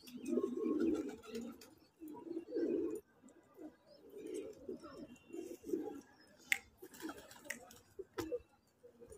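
Domestic pigeons cooing in short, repeated low bouts, with a few sharp clicks in the second half.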